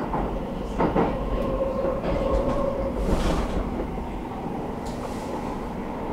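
Metro train running through a tunnel, heard from inside the car: a steady rumble and hum, with a couple of knocks from the wheels about a second in.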